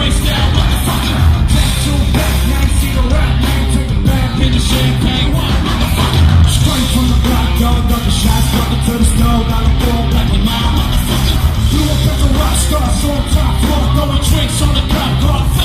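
Loud live rock music with heavy bass and drums and a shouted, yelled vocal.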